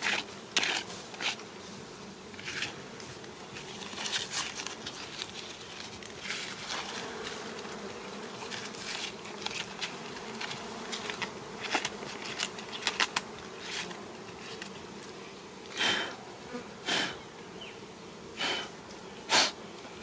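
Honeybees buzzing in a steady, dense hum around their open comb while it is swept with a leafy twig. Short rustles and brushing noises come through the hum, with a few louder ones near the end.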